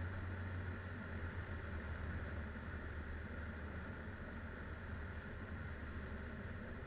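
Aerodreams Land Africa STOL ultralight's engine and propeller droning steadily in low flight, with rushing air noise over it.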